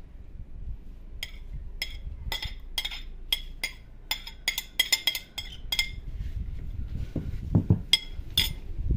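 Repeated sharp clinks of a china plate being tapped to knock chopped onion off into a clay tajine, about a dozen in quick succession, then two more near the end, with some dull handling thumps between them.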